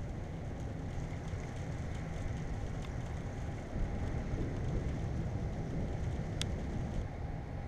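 Thunderstorm wind and rain making a steady low rumble on the microphone, with a few sharp ticks of raindrops hitting the camera; the rumble grows a little louder a little under four seconds in.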